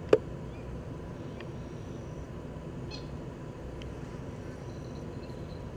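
Outdoor ambience by a pond: a steady low rumble with a few short, faint high chirps scattered through. A sharp click right at the start is the loudest sound.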